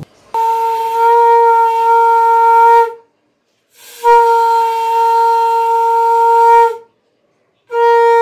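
Conch shell (shankha) blown in long, steady, single-pitched blasts: two blasts of about three seconds each with a short break between, and a third starting near the end.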